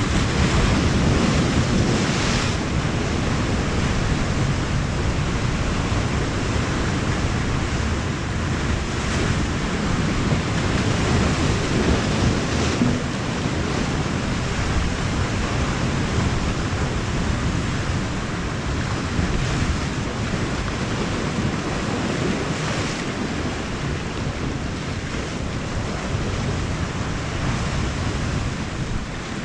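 Sea surf washing against rocky shore in a steady roar of noise, with wind buffeting the microphone.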